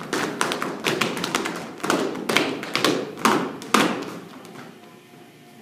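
Children stamping and prancing their feet on a hard gym floor: a quick, irregular run of thumps and taps that stops about four seconds in.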